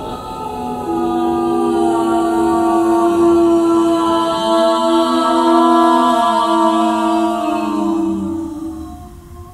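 Several voices singing long, held wordless notes together a cappella in a vocal improvisation, the tones overlapping. A new held note comes in about a second in, another slides up into place around halfway, and the voices fade near the end.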